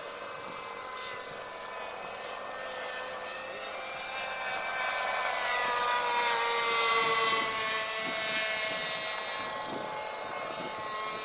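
Radio-controlled model airplane's engine whining in flight. It grows louder to a peak about seven seconds in as the plane passes, and its pitch falls as it goes by.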